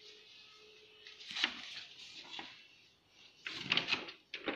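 Paper rustling in a few short bursts as a folded instruction leaflet is handled and its pages turned, the loudest about three and a half seconds in.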